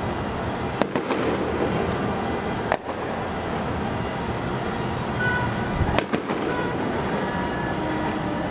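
Fireworks display: distant shells bursting, about five sharp bangs (a close pair about a second in, one near three seconds, another close pair about six seconds in), over a steady wash of crackle and rumble.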